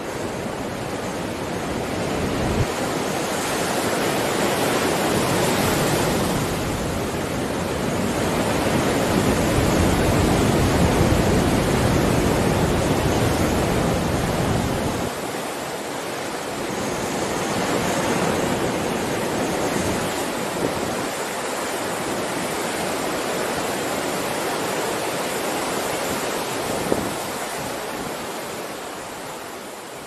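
Heavy surf breaking and washing up a rocky, stony shore: a continuous rush of water that swells for several seconds, eases off sharply about halfway through, builds again and fades near the end.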